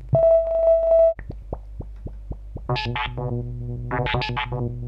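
Teenage Engineering Pocket Operator Modular 400 analog synthesizer tones played back as samples: a steady held tone for about a second, then a lower sustained tone that swells brighter twice. A light ticking beat runs under it.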